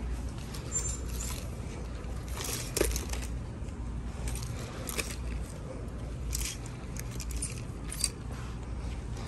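Plastic clothes hangers clicking and scraping on a clothing rack as garments are pushed along it by hand, a few sharp clicks scattered among light rustling, over a steady low hum.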